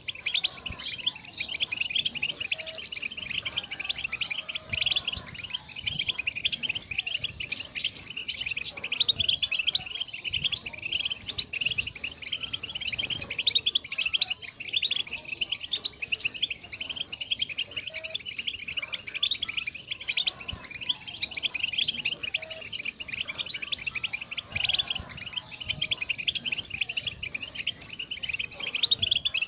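European goldfinch twittering song: a dense, unbroken stream of rapid high chirps and trills, the kind of chatter played to a caged goldfinch to stir it into singing.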